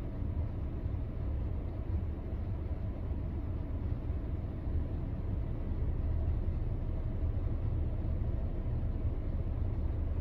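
Steady low rumble of a car's engine and road noise, heard from inside the cabin, getting a little louder about six seconds in.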